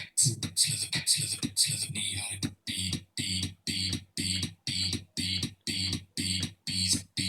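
Beatboxed 'boots and cats' beat, each stroke a low kick-drum 'boots' with a hissing hi-hat 'cats' on top. The strokes come quicker for about the first two and a half seconds, then settle into a steady beat of about two a second.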